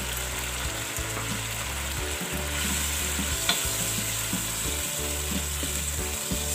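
Chicken and yogurt sizzling in hot oil in a pot, stirred with a wooden spatula, with a few light knocks and scrapes of the spatula. This is the stage where the yogurt is fried into the masala until the oil separates at the sides.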